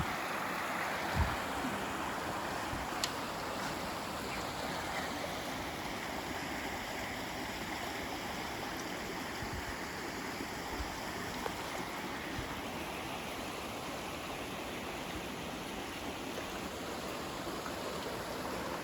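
River water running steadily, a constant rush of flowing current, with a brief low bump about a second in.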